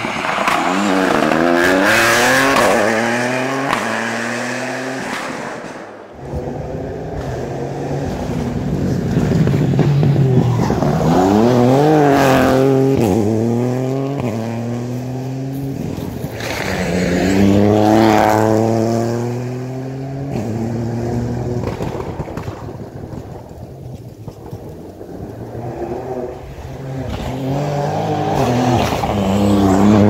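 Ford Fiesta Rally3's turbocharged 1.5-litre three-cylinder engine pulling hard through tight bends, revving up and dropping back at each gear change as the car comes past, over several separate passes.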